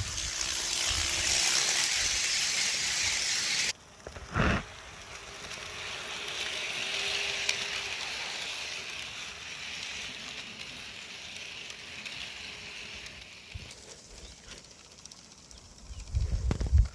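HO-scale model train running on its track: a steady hiss of rolling wheels with a faint motor hum. It cuts off suddenly about four seconds in, followed by a short burst, then comes back softer and stops abruptly again; low rumbling comes in at the very end.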